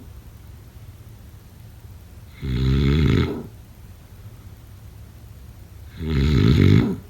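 A person snoring: two rasping snores about three and a half seconds apart, each lasting about a second.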